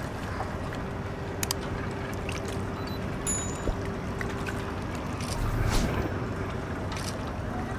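Harbour waterside ambience: a steady low boat-engine drone over water noise, with a few faint clicks and chirps. Near the end comes a brief gust of wind on the microphone.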